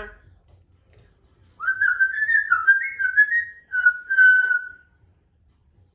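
Congo African grey parrot whistling a short tune of several stepped notes, the last one held longer.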